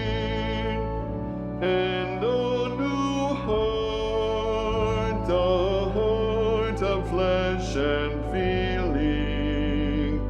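Choral music: voices singing with vibrato over accompaniment. A held chord fades about a second in, and the voices re-enter shortly after, moving through changing sustained notes.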